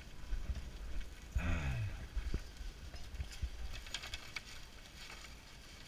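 Brown paper bag crinkling and rustling in a small cluster a few seconds in as a hand reaches into it, over a steady low rumble of wind on the microphone. A short falling vocal sound about a second and a half in.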